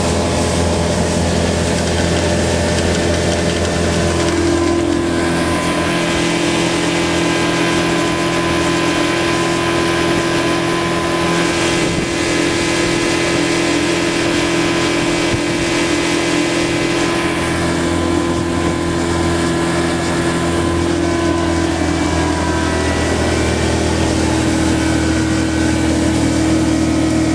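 A 1983 90 hp V4 two-stroke outboard running steadily at planing speed, pushing a runabout across open water. Its note shifts slightly about four seconds in and again near the end.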